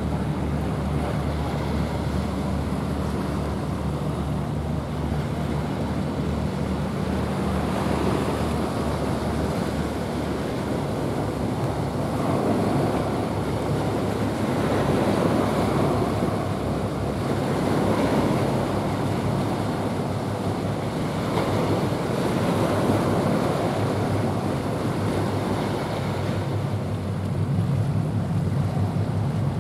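RORO cargo ship's diesel engine giving a low pulsing hum as the ship passes, over the rushing wash of water along its hull and wind on the microphone. The engine hum is strongest at first, sinks under the water noise in the middle, and comes back near the end.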